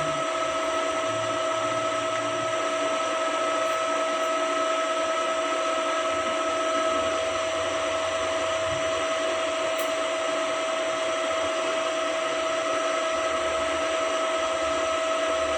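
Metal lathe running steadily, its motor and drive giving a constant whine with a steady high tone.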